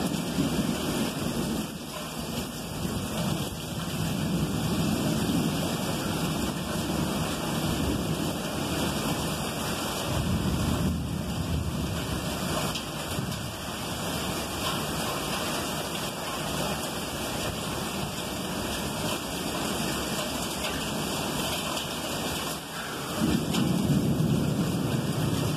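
Thunderstorm: steady rain with long, rolling rumbles of thunder. The rumble eases in the middle and swells louder again near the end.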